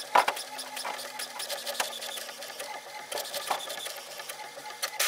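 HP OfficeJet Pro 8028 inkjet printer printing its print-head alignment page: the print carriage and paper feed run with repeated sharp clicks as the sheet comes out, then stop abruptly near the end.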